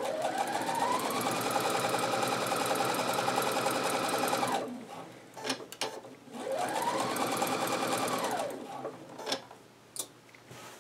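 Electronic sewing machine stitching a straight seam in two runs: the motor winds up in pitch, runs steadily for about four and a half seconds and stops, then a shorter run of about two seconds winds up and back down. A few light clicks follow near the end.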